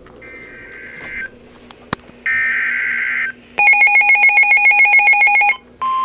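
A NOAA Weather Radio receiver sounding an Emergency Alert System activation for a severe thunderstorm warning. Two screechy digital bursts of the SAME header data come first, each about a second long. Then a sharply pulsing electronic beep runs for about two seconds, and near the end the steady single-pitch warning alarm tone begins.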